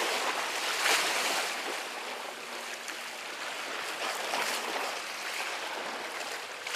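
Small sea waves washing and foaming against the rocks at the water's edge, the wash swelling about a second in and again past the middle.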